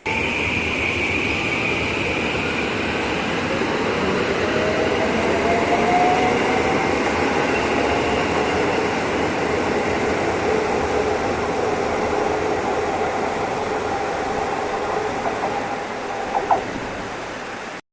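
Train running on the rails: a steady rumble with a high squeal at the start that fades away, and a tone that rises slowly in pitch about five seconds in. A short double knock comes near the end.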